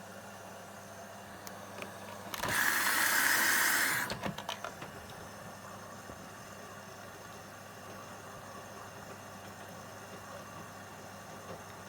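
AEG LS60840L washing machine running with a steady low hum. About two and a half seconds in, a loud hiss lasts about a second and a half and is followed by a few quick clicks.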